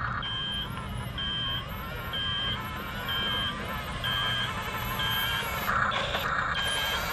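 Reversing-alarm beep from an RC bulldozer's sound effects, a high beep repeating about once a second over a low steady hum. Two short, louder bursts come about six seconds in.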